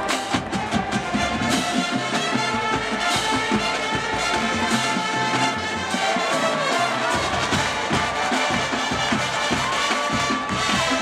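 Marching band playing a brass-led tune over drums, with a long held high brass note near the end.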